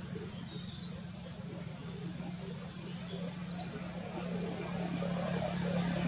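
Birds chirping in the forest canopy: a few short high chirps spaced a second or two apart, over a steady low hum.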